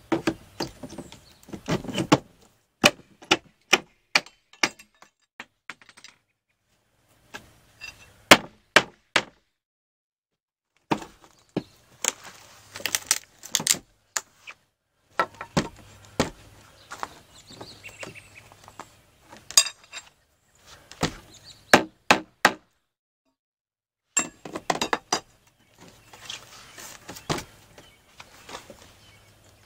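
Hammer blows on a metal pry bar driven under the rotted wooden corner trim of a playhouse, prying the old trim loose. The sharp knocks come in several quick runs with short silent breaks between them.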